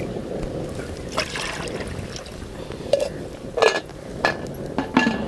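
Water poured from a small brass pot into a clay cooking pot, the rushing pour ending about a second in. Then several sharp clinks and knocks of pots and a lid being handled.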